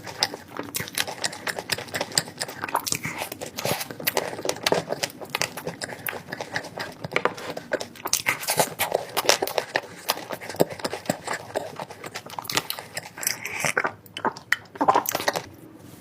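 Someone eating chocolate close to the microphone: a dense, irregular run of crackles and clicks.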